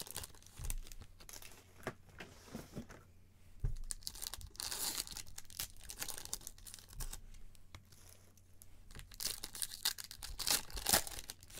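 Shiny trading card pack wrappers being torn open and crinkled by gloved hands: irregular tearing and crackling, with a longer rip about five seconds in.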